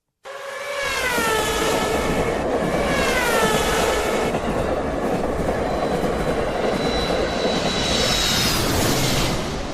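A dubbed-in joke sound effect in place of the cars' real sound: steady rumbling noise with a pitched tone that falls twice in the first few seconds and a high, thin squeal held near the end.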